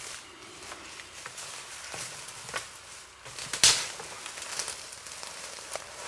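Footsteps pushing through brush and dry leaf litter, with scattered small cracks of twigs and one sharp, loud snap about three and a half seconds in.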